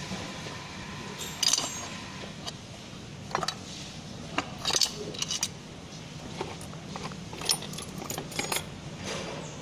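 Steel transmission parts (gears, a cover plate, bolts) clinking and rattling against one another in a metal parts tray as they are handled, in a dozen or so irregular sharp clinks over a steady low hum.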